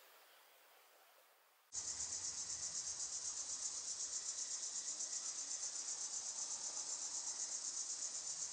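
Loud, high-pitched insect chorus that starts abruptly about two seconds in and keeps up a fast, even pulsing; before it, only a faint hiss.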